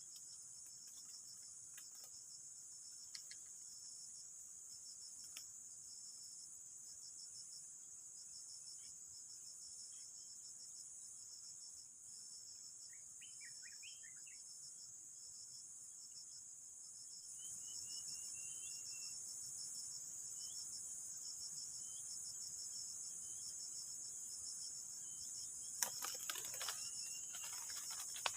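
Steady high-pitched chorus of insects: a fast, even pulsing trill over a continuous shrill hum, growing a little louder about two-thirds of the way through. A few brief bird chirps come through faintly, and a short cluster of knocks sounds near the end.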